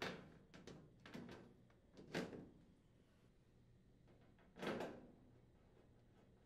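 Sheet-metal access panel of a stacked washer/dryer laundry center being fitted back into place, giving five short knocks and clacks, four in the first couple of seconds and the loudest about four and a half seconds in.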